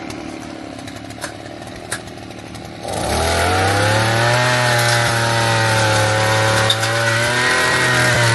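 A small engine running, a steady motor drone that grows much louder about three seconds in.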